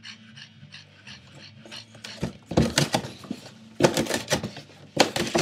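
Boston Terrier attacking cardboard: light rustles and ticks of cardboard, then three loud bouts of tearing and crunching cardboard mixed with the dog's growls, about two seconds in, about four seconds in, and near the end.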